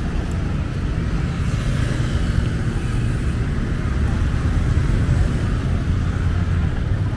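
Steady road traffic noise of motorbikes, cars and a tuk-tuk passing on a city street, a continuous low rumble.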